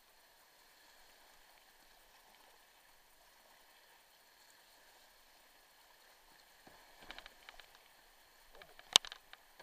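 Whitewater rushing faintly as a kayak runs a rapid. From about seven seconds in come splashes and knocks of paddle and water against the boat, with one sharp, loud knock near the end.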